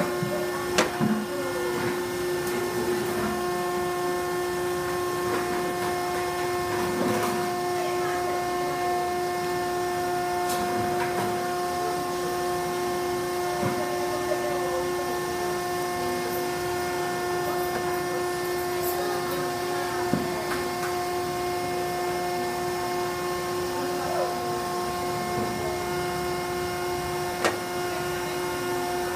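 Steady hum of a motor running beside an apple press, with occasional sharp knocks and clatters as the press racks and stainless steel form are handled and set down while a press stack is built.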